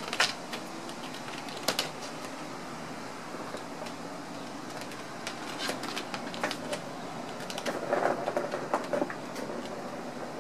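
Irregular clicks and scratches of Ragdoll kittens' claws gripping a carpeted wooden cat-tree post as they climb and bat at a wand toy, over a steady background hiss, with a busier patch of scrabbling about eight seconds in.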